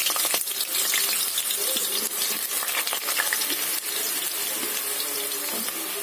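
Cubed potatoes frying in a kadai of hot oil, just added: a steady sizzling hiss with many small crackling pops.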